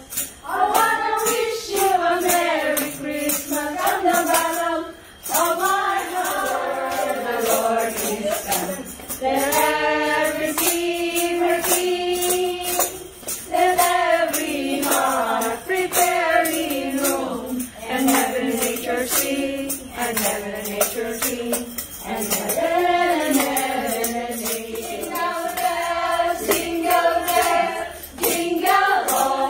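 A small group of carolers singing a Christmas carol together, with a hand tambourine jingling in time.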